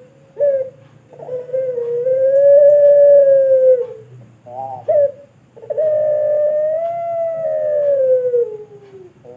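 Puter pelung dove, a Barbary dove bred for its long coo, cooing: a short note, then a long drawn-out coo, two quick notes, then a second long coo that sinks in pitch as it ends.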